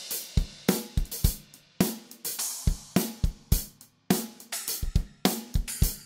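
A drum kit played with sticks: quick snare, bass drum and hi-hat strokes with ringing strikes on Kingdo Artist Bright B20 bronze cymbals. A brief gap about four seconds in, then a loud hit.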